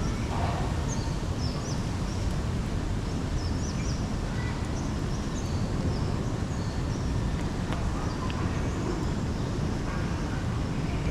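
Steady outdoor city rumble with birds chirping repeatedly over it: many short, high chirps through the whole stretch.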